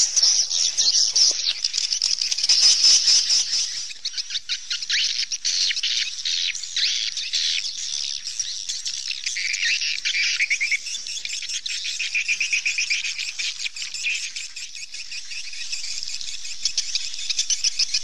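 Swallows twittering in a continuous, rapid chatter of high chirps and clicks.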